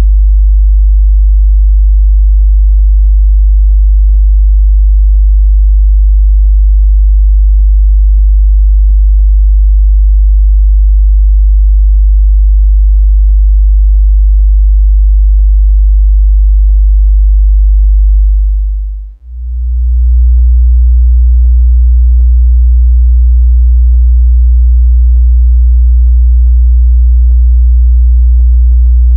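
Steady 50 Hz sine-wave bass test tone that fades out about two-thirds of the way through. After a brief gap a slightly higher 60 Hz sine test tone fades in and holds steady.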